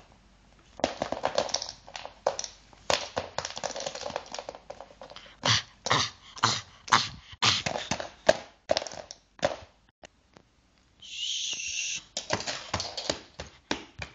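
Handling noise: irregular rustles, brushes and light bumps as baby dolls in cloth clothes are moved about close to the microphone, with a denser rustle lasting about a second near the end.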